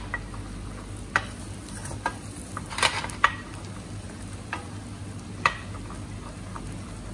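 Garlic and red chilli flakes sautéing in butter in a pan, sizzling quietly, while a utensil stirs them and knocks and scrapes against the pan about six times at irregular intervals.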